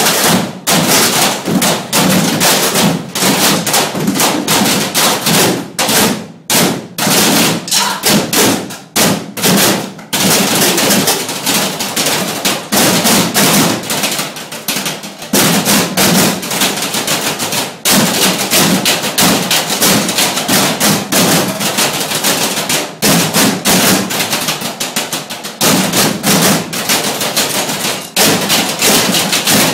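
Group of players drumming on galvanized metal trash cans with sticks: a loud, fast, dense run of hits on the metal, with a few short breaks.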